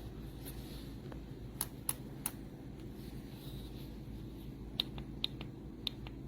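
Sharp plastic-sounding clicks from handling a rechargeable LED work lamp, three in quick succession and then a cluster near the end, over a steady low hum.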